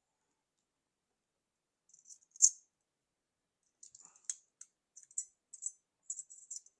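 Small metal clicks and light rattling from a stainless steel single-blade safety razor being handled while its blade is fitted and the head and handle put back together. Silent at first, then one sharper click about two and a half seconds in, followed by a run of faint clicks.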